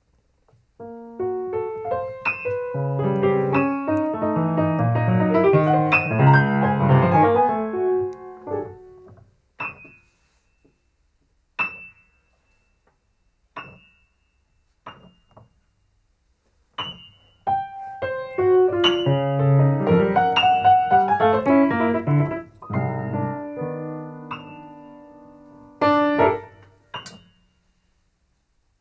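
Grand piano played: a dense, fast run of notes across the keyboard, then single sharp high notes struck about two seconds apart, then another dense passage that thins into held low tones, with a last loud strike near the end.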